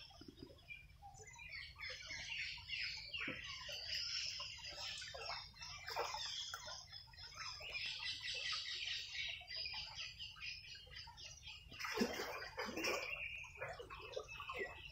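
Many birds chirping and calling at once in a busy, continuous chorus, with a louder burst of calls about twelve seconds in.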